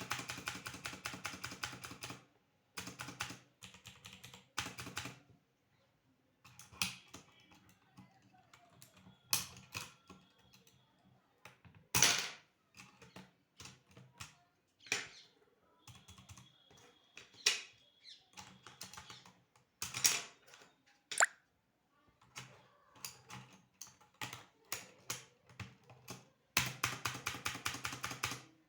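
AULA mechanical keyboard being typed on. There are fast runs of rapid keystrokes at the start and again near the end, with slower, scattered key presses and a few louder single clacks in between.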